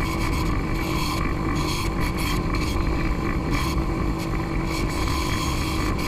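Delta bandsaw running and cutting through a thick stack of plywood sheets: a steady motor hum under a rasping cutting noise that swells and drops as the stack is fed into the blade.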